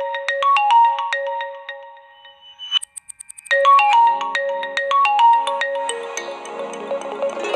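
Phone incoming-call ringtones: a marimba-like melody that fades out about two to three seconds in, a brief run of high clicks, then another ringtone starting with a similar melody over a fuller backing.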